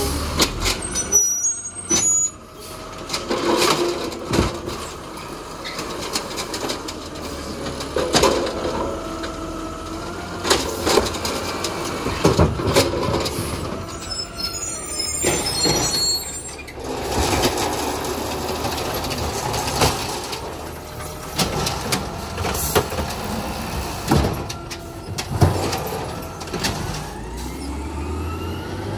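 Automated side-loader garbage truck collecting curbside bins: the diesel engine revs and the hydraulic arm whines as it lifts and dumps the bins, with sharp knocks of bins and falling trash, thickest in the first two seconds, and air-brake hisses.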